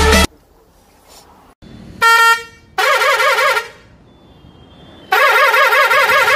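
Tata truck's horn sounding. A short blast comes about two seconds in, then a brief warbling blast. From about five seconds in it plays a long, loud, steadily warbling horn tone.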